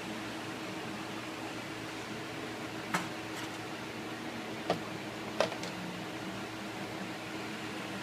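Steady fan-like hum with a constant low tone, broken by three short, sharp clicks: one about three seconds in, then two close together near four and three-quarter and five and a half seconds. The clicks are hand tools knocking on metal parts of a Ford 6.0 Powerstroke diesel engine during fuel-rail work.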